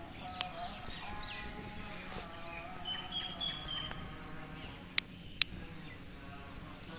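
Goats bleating in held, pitched calls, with short bird chirps in the middle and two sharp clicks about five seconds in.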